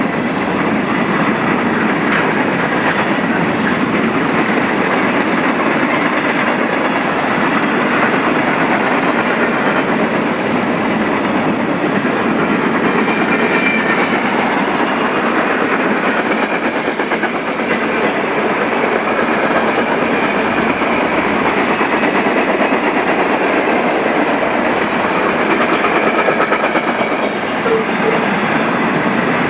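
Steady, loud rolling noise of a mixed freight train's cars passing close by: steel wheels running on the rails, with a faint high-pitched ring at times.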